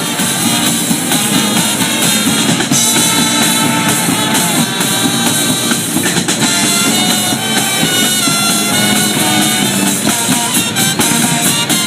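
Loud band music with a drum kit playing.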